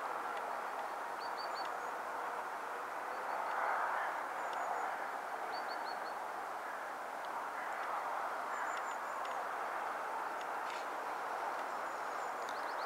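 Distant freight train rolling past: a steady, even noise of wagon wheels on the rails. Small birds chirp over it in short, quick series of high notes.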